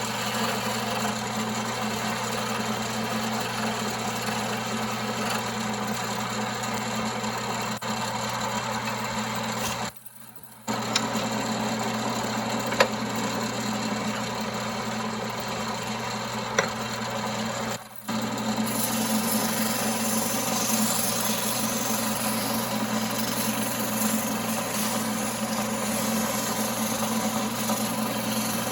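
1939 Pow-R-Kraft wood lathe running with a steady motor hum. The sound cuts out briefly about ten seconds in, and again just before eighteen seconds.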